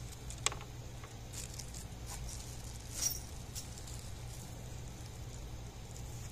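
Small plastic mounting parts and their packaging being handled: a few light clicks and some rustling, over a low steady background hum.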